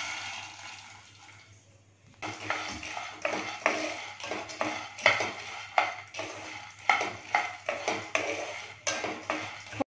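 Wooden spatula stirring and scraping skinned peanuts in a nonstick pan as they dry-roast, a rattling scrape several times a second starting about two seconds in.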